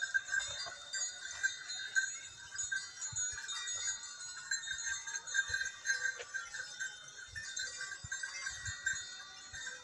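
A continuous tinkling of many small bells from a grazing flock of sheep and goats, a steady jingle with no single strike standing out.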